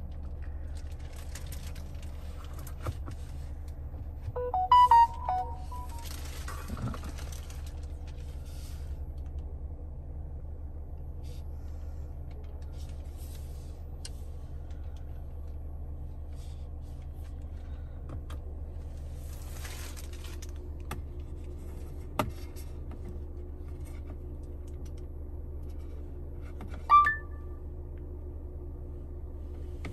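Steady low hum inside a car cabin, with a short cluster of electronic chime tones about five seconds in and a single electronic beep near the end, as a phone pairs with the car's infotainment system. A few soft rustles and clicks of handling in between.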